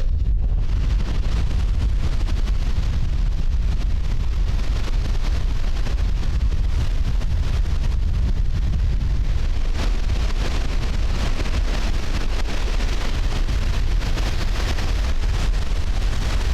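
Heavy wind buffeting the microphone with a steady deep rumble, over the wash of large lake waves breaking on the beach.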